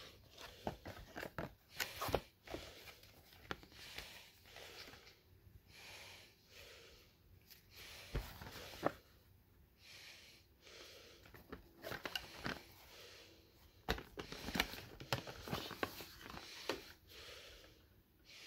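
Cardboard packaging and a paper instruction leaflet handled by hand: irregular rustling, scraping and light taps as the box is opened and its contents lifted out.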